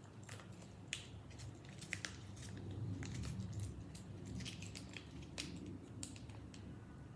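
Close-up chewing of fried chicken: wet, squishy bites with scattered sharp crunchy clicks.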